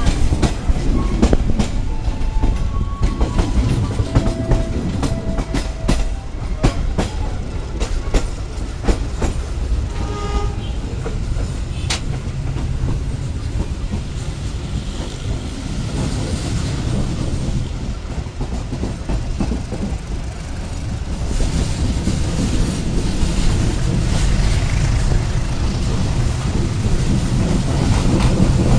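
Passenger train rolling out of a station: a steady low rumble of the carriages with rapid clacks of the wheels over rail joints, thickest in roughly the first twelve seconds, then mostly an even rumble.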